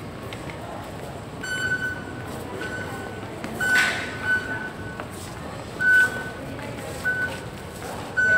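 Metro ticket gates beeping as passengers tap through: about six short, identical electronic beeps at irregular intervals over the murmur of a crowd. There is a brief rush of noise a little before the middle.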